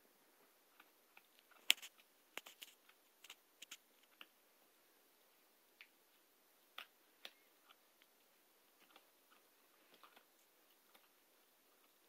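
Siberian husky puppy gnawing a dried salmon skin chew: faint, irregular crunches and clicks of teeth on the hard chew, the loudest just under two seconds in.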